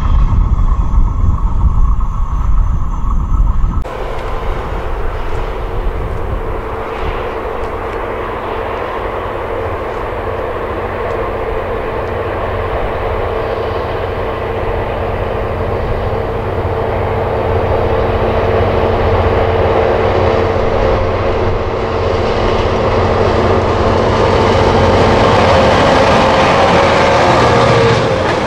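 For the first few seconds, the tail of a freight train rumbles past. Then, after a cut, a freight train hauled by a pair of CFL Cargo MX diesel locomotives approaches from a distance with a steady engine drone that grows louder. Near the end, loaded car-carrier wagons roll past.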